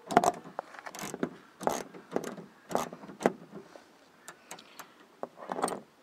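Socket wrench ratchet working the 8 mm bolt inside the door-handle recess. It clicks in short runs about twice a second, then gives a few lone ticks, and makes one more run near the end.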